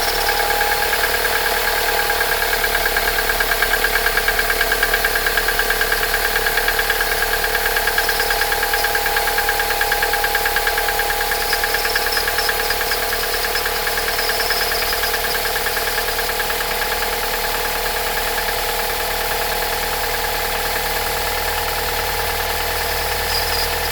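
Toyota 5S-FE 2.2-litre inline-four engine running cold, with a fast, even knock in time with the engine that the owner cannot explain and finds worse in frost. It eases a little in the second half.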